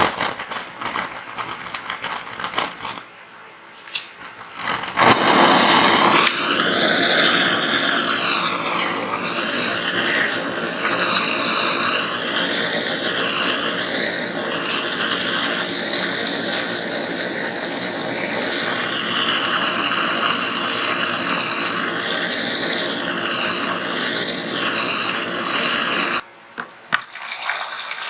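Sandblaster running: a loud, steady rushing hiss of blasting abrasive, its tone wavering slowly, starting about five seconds in and cutting off near the end. It is preceded by a few light clicks and knocks.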